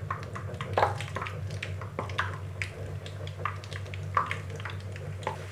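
Batter-coated pork pieces frying in hot oil in a pan: the oil bubbles steadily with many irregular small crackling pops, over a low steady hum.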